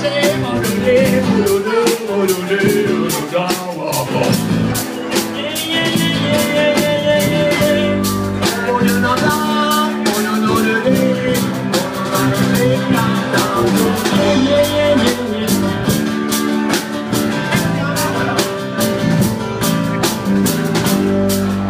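Live rock band playing an instrumental passage: a lead guitar line with bending notes over sustained chords, bass, and drums keeping a steady cymbal beat.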